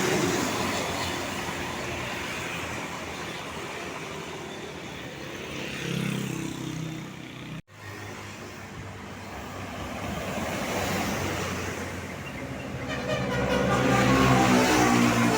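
Tour buses driving past with engine and road noise, cutting out for an instant about halfway through. Near the end a bus's multi-tone 'telolet' horn starts up, playing a changing chord-like tune.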